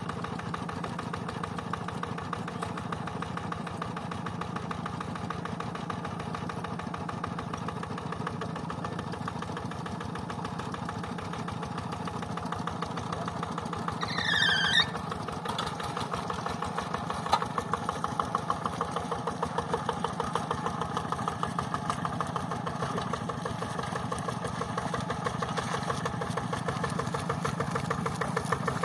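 Rice-paddy tractor's diesel engine running steadily, its throb growing louder and more evenly pulsing a little past halfway. A short high-pitched curving sound cuts in briefly about halfway through.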